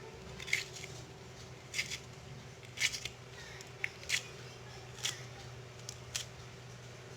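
Light clicks and snips of ingredients being handled, about six spread irregularly over several seconds, over a faint steady hum.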